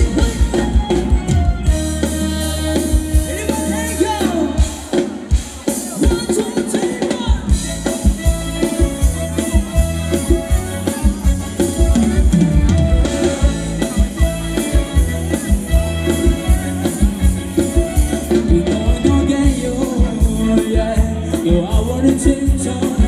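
Live band playing upbeat Thai ramwong dance music, with a steady drum beat and a singer. The low drum beat drops out for a couple of seconds about five seconds in, then comes back.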